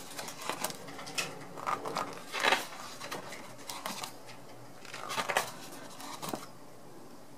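Pages of a photo book being turned by hand: several quick paper swishes and rustles, a run of them at the start and another a little past the middle.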